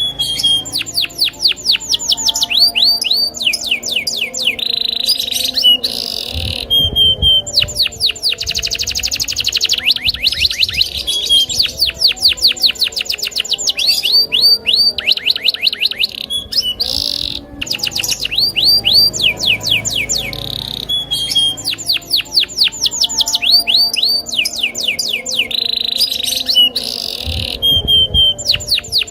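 Domestic canary singing a long, unbroken song: fast trills of rapid downward-sweeping notes that change speed from phrase to phrase, broken by short held high notes.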